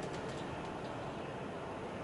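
Steady cabin noise of a highway coach running on the expressway: engine and tyre drone heard from inside the passenger compartment, with a few faint clicks in the first half second.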